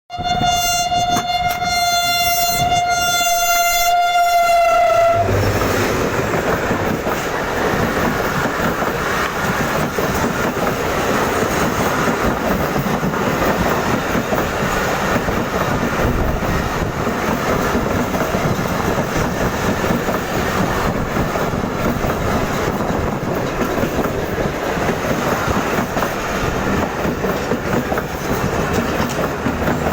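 Pakistan Railways train horn sounding one long steady note for about five seconds, then cutting off. After that comes the continuous rumble and rail clatter of a train running past.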